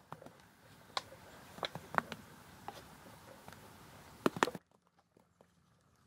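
A few scattered sharp taps or knocks, the loudest pair a little past four seconds in, after which the sound drops almost to silence.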